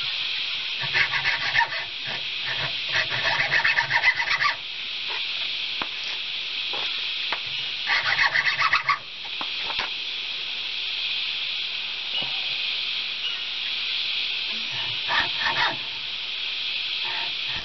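Hand hacksaw rasping back and forth through a hard, woody Banksia seed pod clamped in a vise, cutting a slit into it. The sawing comes in spells, about a second in, near the middle and again near the end, over a steady high hiss.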